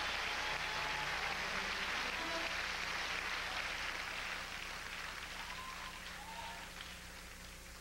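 Concert audience applauding, the applause slowly dying away.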